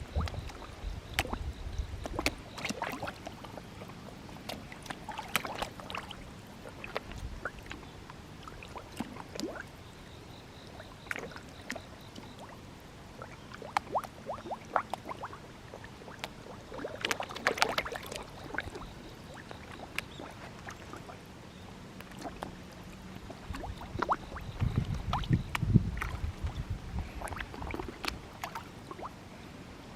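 Many koi splashing and smacking at the water surface as they snatch floating feed: irregular small splashes and pops, with busier flurries about halfway through and again near the end.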